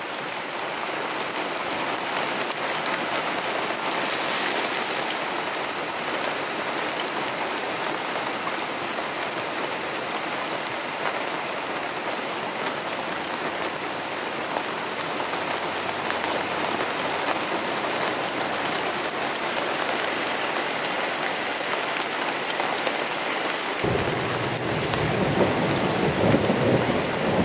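Rain falling steadily on a truck camper, a dense patter of drops. Near the end a low rumble joins in.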